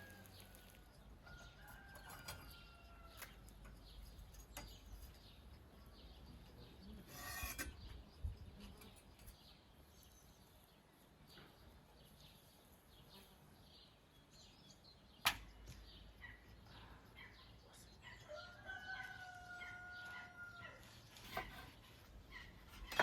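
Faint outdoor farmyard ambience with a rooster crowing twice, once at the start and again near the end, each a held call that falls slightly in pitch. About a third of the way in there is a short rustle, and a sharp knock a few seconds later.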